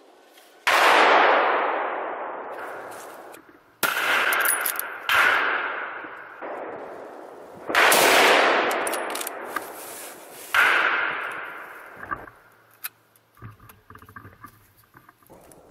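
Five hunting-rifle shots, unevenly spaced over about ten seconds. Each is a sharp crack followed by a long echo rolling off through the woods.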